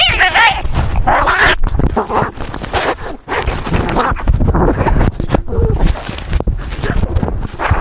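Domestic cats fighting: a continuous scuffle of thumps and scratching, broken by short cries.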